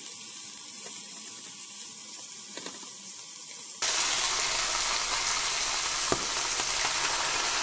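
Pork belly slices sizzling in a nonstick frying pan: a quiet hiss at first, then a much louder, steady sizzle from about four seconds in as a full pan of slices fries. One sharp tap, the metal tongs against the pan, about six seconds in.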